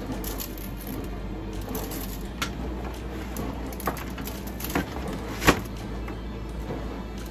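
Scattered crinkles and clicks of a disposable aluminium foil roasting pan as a gloved hand presses and rubs seasoning into a whole albacore, the sharpest click about five and a half seconds in, over a steady low hum.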